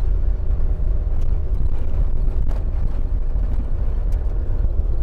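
Iveco Daily 4x4 camper driving, a steady low engine and road rumble with a faint steady hum above it.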